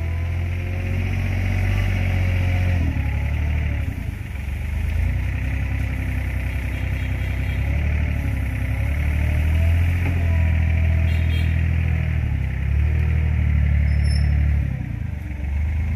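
Small Komatsu compact wheel loader's diesel engine running under load as it digs into and lifts sand, the engine note swelling and easing several times as the bucket works.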